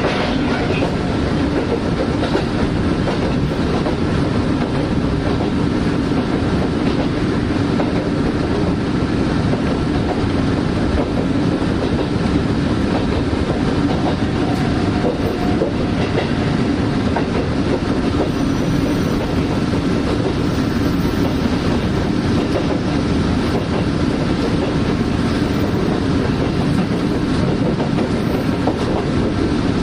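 KiHa E130 diesel railcar running at speed: steady rumble of the train under way, with a faint steady whine over it.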